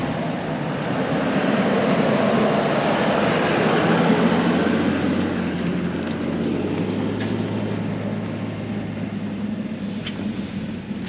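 A 4WD's engine working under load as it drives through soft, boggy sand, mixed with the rushing noise of tyres in the sand. The sound swells to its loudest about four seconds in, then settles into a steadier engine drone.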